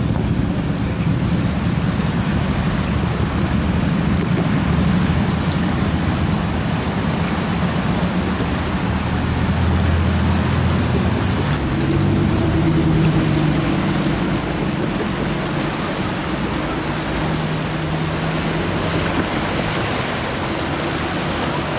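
The Chippewa River in major flood, its brown floodwater rushing and churning over rapids in a steady noise, with a low rumble underneath that swells and fades.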